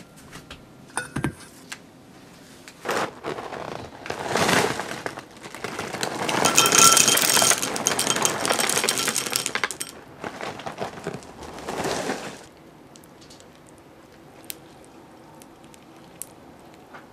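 Froot Loops cereal pouring from the box into a small glass bowl, the dry rings rattling and clinking against the glass, loudest in the middle of the stretch and stopping a little past halfway. A few light knocks come about a second in.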